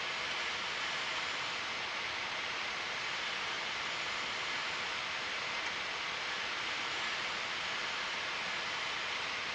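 Steady, even hiss of cockpit noise in a Piper Warrior on final approach, the engine and the airflow blended into one unchanging rushing sound.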